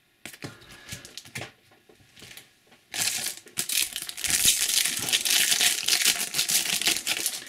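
Shiny plastic-foil wrapper of an Adrenalyn XL trading card booster pack crinkling as it is handled and torn open. It starts about three seconds in and runs dense and loud until just before the end. Before it there are only faint ticks of cards being handled.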